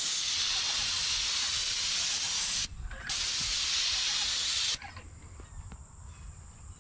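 Airless paint spray gun, run off a Graco Pro X 17 sprayer, hissing as it sprays paint onto metal barn siding in two long trigger pulls, with a short break a little over two and a half seconds in. The spraying stops just under five seconds in.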